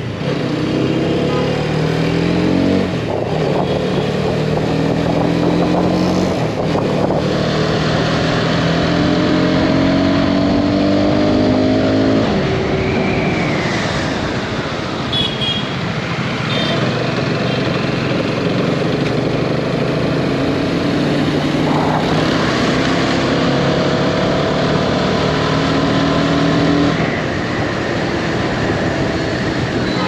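Hero Karizma XMR 210's single-cylinder, liquid-cooled 210cc engine under way, its pitch climbing through each gear and dropping at each upshift several times, over wind and road noise. Even at high revs it sounds smooth and refined.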